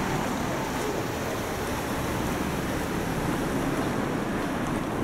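Steady rush of road traffic from cars passing close by on a street.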